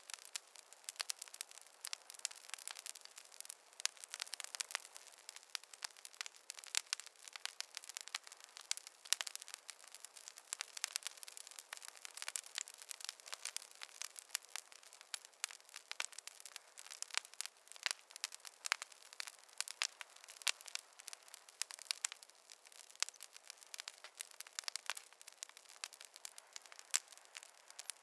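Campfire crackling: a dense, irregular stream of sharp pops and snaps over a soft hiss, with no low rumble.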